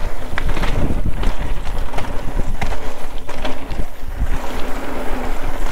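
Mountain bike descending fast on a dirt trail: heavy wind buffeting on the microphone over the rumble of tyres, with scattered sharp knocks and rattles from the bike over the bumps.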